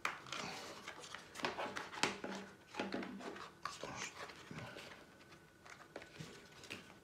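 Hands prying open the fastening of a Patagonia Level 9 third-generation knee pad to separate its hard plastic outer shell from the padded insert. The sound is irregular scraping, rubbing and clicking of plastic on plastic and fabric, with the sharpest click about two seconds in.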